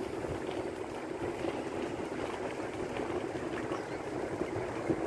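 Electric bike riding over a gravel trail: a steady rumble of tyres on gravel with wind on the microphone, and a sharp knock near the end.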